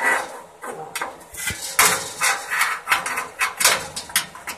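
Sheet-metal parts of a vertical smoker clanking and rattling against each other as a steel bowl is worked into its mounting holes: a quick, irregular run of metallic knocks.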